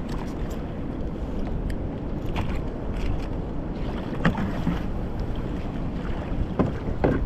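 Wind buffeting the microphone in a steady low rumble while on a kayak at sea, with water slapping against the kayak in a few short hits.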